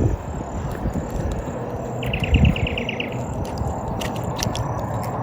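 A small animal's rapid chirping trill of about ten notes in one second, over a steady low outdoor noise.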